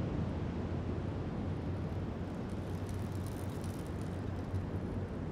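Steady low rumbling noise that cuts off suddenly near the end.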